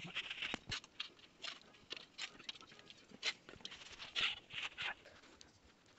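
Kitchen utensils and steel dishes being handled at a gas stove: irregular light clinks, taps and short scrapes, a few each second.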